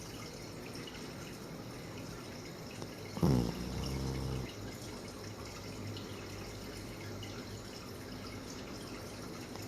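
A sleeping pet snoring: one snore about three seconds in, a sharp start settling into a low buzzing note that lasts about a second, with a faint steady hiss of breathing between snores.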